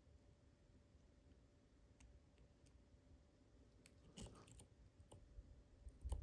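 Faint, sparse clicks and ticks of a lock pick and tension wrench working the pins of a Mul-T-Lock Junior lock during single-pin picking, with a small cluster of clicks about four seconds in.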